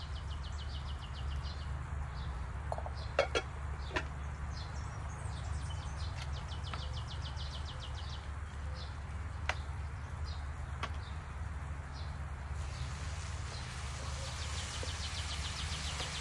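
Outdoor ambience: short bursts of rapid, high-pitched chirping repeat every second or so, over a steady low rumble. A few sharp clicks come about three to four seconds in and again near ten seconds.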